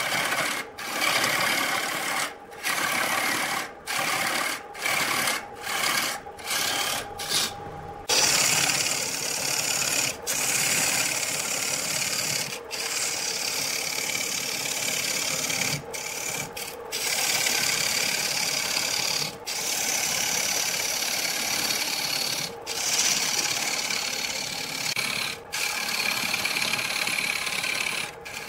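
Turning tool cutting a large wooden blank spinning on a wood lathe: a steady scraping hiss of shavings peeling off. It breaks off in many brief gaps during the first eight seconds and only now and then after that.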